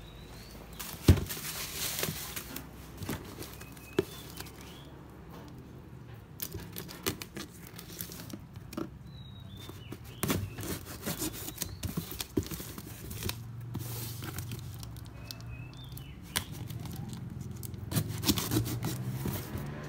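Plastic packaging being handled and cut open: bubble wrap and a plastic mailer crinkling and rustling, a knife slitting along the mailer's edge and the wrapping torn open by hand. Scattered knocks on the table throughout, the sharpest about a second in.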